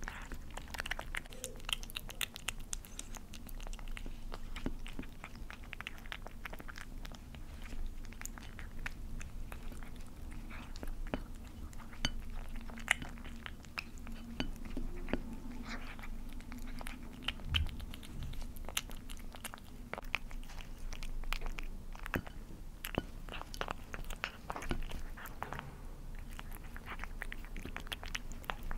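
Kitten eating wet cat food chunks in gravy from a saucer: quick, irregular wet chewing clicks that go on throughout.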